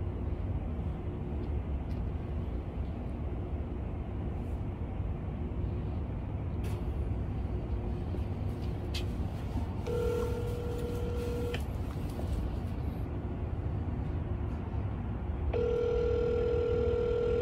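Telephone ringback tone from an outgoing call on speakerphone: two rings of about two seconds each in the second half, some five seconds apart. A steady low rumble runs underneath.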